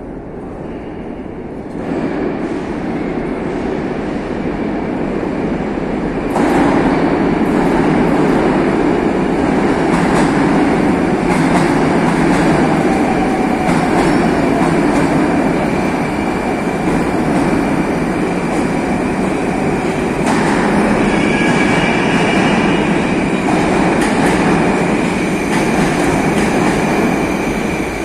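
Moscow Metro train arriving at an underground platform. Its rumble steps up about two seconds in and again about six seconds in, stays loud as the cars roll along the platform, and picks up a high squeal about twenty seconds in as the train slows to a stop.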